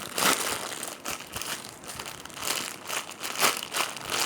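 Plastic crinkling and rustling in quick, uneven crackles as a foam squishy toy is handled and squeezed.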